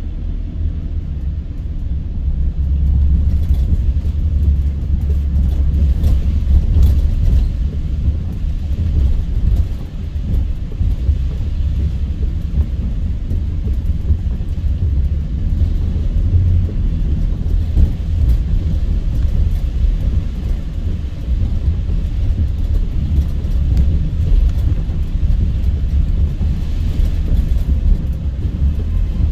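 A car driving, with a steady low rumble of road and engine noise.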